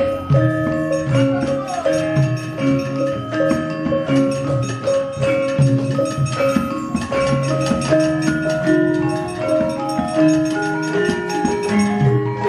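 Javanese gamelan music: metallophones play a running melody of struck, ringing notes, with sharp wooden knocks mixed in.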